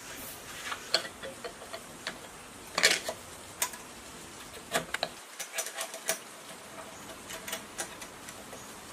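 Light, irregular clicks and taps of small metal and plastic engine parts being fitted together by hand on a gasoline generator engine, with the loudest cluster about three seconds in.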